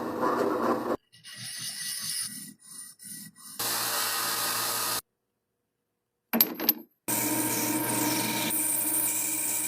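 Workshop sounds in short clips cut together, with dead silence between cuts: rubbing or filing strokes first, then a power tool running steadily, briefly and again from about two-thirds of the way in.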